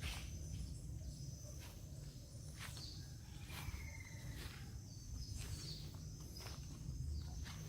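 Faint outdoor ambience: a steady high insect drone with short bird chirps, one brief gliding call a little past the middle, and scattered sharp clicks like footsteps, over a low rumble.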